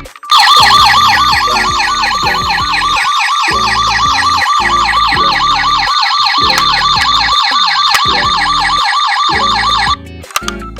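Ambulance siren in a fast, steady warble, loud over background music, cutting off abruptly near the end.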